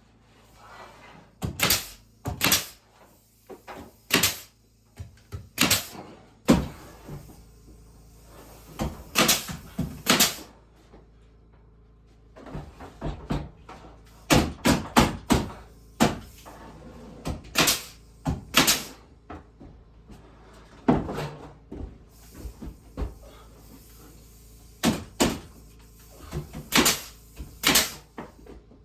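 Irregular sharp wooden knocks and bangs of carpentry work on boards, some coming in quick pairs, with quieter handling sounds between them.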